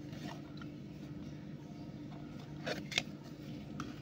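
Light rustles and a couple of sharp taps from a thin printed paper card being handled and set down on a table, the loudest taps about three-quarters of the way through, over a steady low hum.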